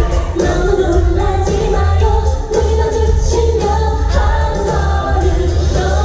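A woman singing a pop song live into a microphone with a band, heard through a loud concert sound system with heavy bass.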